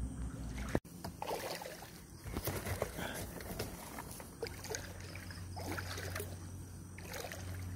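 A small rowboat being moved by hand through shallow water: water sloshing against the hull, with irregular light knocks and bumps from the hull and its rope. A low steady hum comes in about halfway through.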